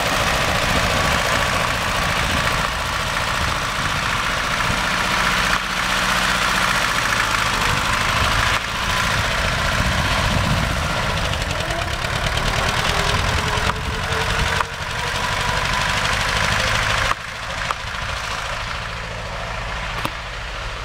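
DVSŠ-16 tractor's two-cylinder air-cooled diesel running steadily under way. It drops in loudness about three-quarters of the way through and stays fainter to the end.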